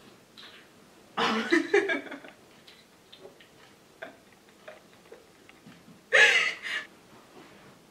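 A woman laughing in two short bursts, one about a second in and another near the end, with faint small ticks between.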